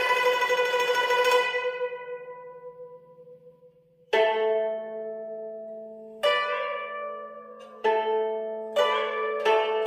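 Guzheng being plucked: a busy run of notes stops about a second and a half in and rings out, fading over the next two seconds. Single plucked notes and chords then come in one at a time, a second or two apart, each ringing on, and they come faster near the end.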